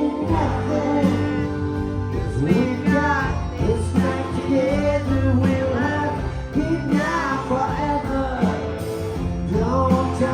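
Live band playing a rock song, with a sung melody over guitar and a steady low bass.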